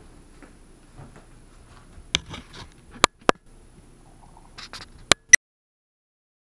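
Light rustling and a handful of sharp clicks, the last two close together, after which the sound cuts off abruptly.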